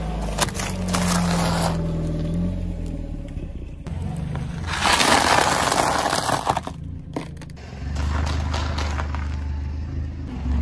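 A car tyre rolling slowly over brittle food, crunching and crackling it flat: wafer ice cream cones and dry spiral pasta. There are three bouts of crunching, the loudest in the middle, over a low steady car engine hum.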